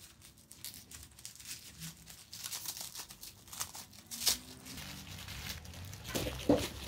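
Clear plastic bag crinkling and rustling as it is worked off a small plastic slime tub, with a sharper click about four seconds in.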